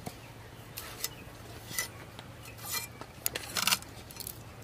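Moringa drumstick pods being scraped and cut on a boti, a fixed curved iron blade: a string of short crisp clicks and brief scrapes at an uneven pace, the longest scrape about three and a half seconds in.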